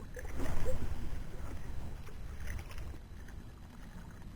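Small boat noise on the water: a brief rush of water and handling noise about half a second in, over a steady low rumble.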